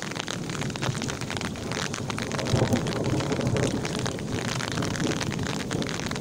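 Rain falling on a wet concrete lane: a steady hiss studded with many small drop ticks, over a low rumble.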